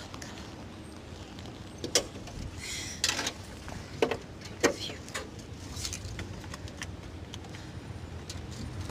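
Scattered clicks, clinks and small knocks of hands working in a car's engine bay under an open hood, over a low steady hum.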